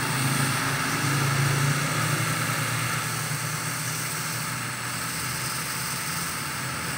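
Small motor running steadily, spinning an engine valve while abrasive paper is held against the valve head, with a dry sanding hiss over the hum. The sanding scrapes carbon deposits off the valve to even out its surface.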